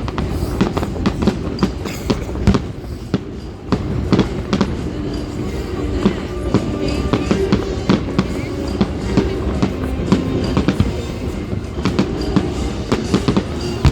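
Fireworks going off in quick succession: a rapid, irregular run of sharp bangs and crackles, several a second. Music and people's voices run beneath.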